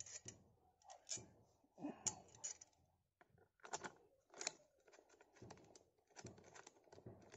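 Faint, irregular clicks, taps and short scrapes of small metal parts being handled and fitted together: a chainsaw bar, its cover plate and washers being fitted onto an angle grinder's head.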